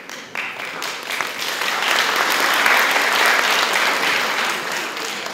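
Audience applauding, swelling to its loudest about halfway through and then dying down.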